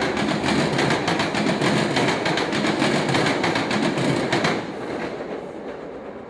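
A passing train's wheels clattering quickly over a railroad diamond crossing. The clatter stops about four and a half seconds in, and the train's sound then fades away.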